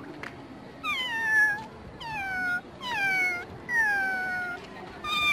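A boy imitating a cat with his mouth: a series of meows about one a second, each falling in pitch.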